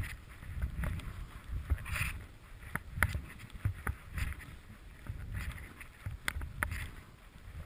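Skis swishing through deep powder snow, one hiss with each turn every second or two, over a low rumble of wind on the helmet camera's microphone. A few sharp ticks are heard, about three seconds in and again near the end.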